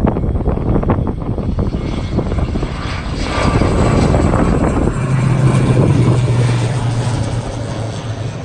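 Aircraft engines running loud as a plane passes the airport. The noise swells to a peak midway, where a steady low hum comes in, then eases off a little.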